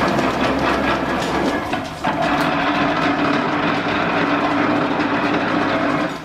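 1897 Whitcomb eight-foot metal planer running under belt drive, its gears, belts and reciprocating table making a steady clattering mechanical sound. The sound dips briefly about two seconds in and then carries on with a changed, steadier note.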